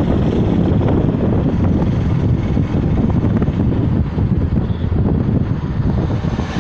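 Steady low rumble of road and wind noise from a car driving at speed.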